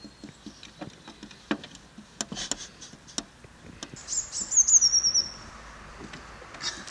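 Fingertips tapping on a car's rear window glass: scattered light, sharp taps. About four seconds in, a bird sings a short high trill that falls in steps, the loudest sound.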